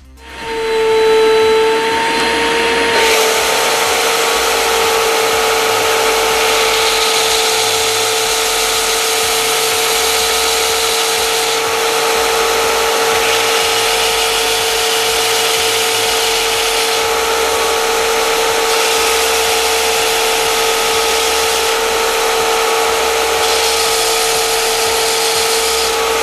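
SIP 01943 belt and disc sander running under its 1 hp motor, with a steady whine. A dense rasping hiss comes in over the whine at about three seconds.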